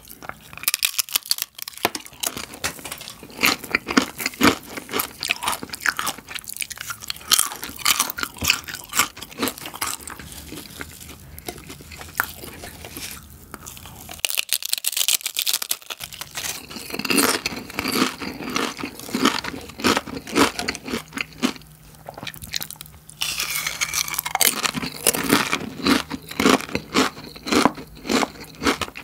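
Crisp nacho chips bitten and chewed close to the microphone: dense, sharp crunching, with a short pause about halfway through.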